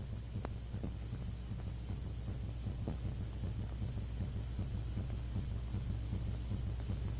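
Steady low hum with faint, irregular crackling ticks over it, and a sharper click about half a second in; no speech or music.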